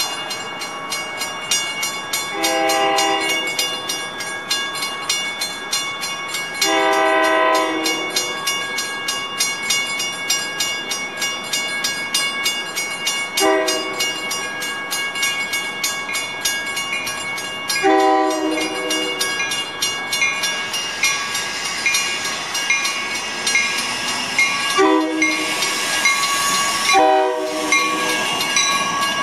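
Metra commuter train's horn sounding a series of blasts: two of about a second, a short one, another of about a second, the long-long-short-long grade crossing signal, then two more short blasts near the end. Under it a railroad crossing bell rings steadily, and the train's rumble grows as it reaches the crossing.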